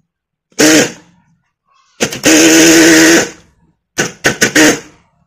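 Electric air-horn compressor motor running each time the supply wire is touched to it: a brief burst, then a steady whine for about a second, then several quick stop-start bursts. The owner says it spins but doesn't build as much air pressure as it should, so the horn sounds weak.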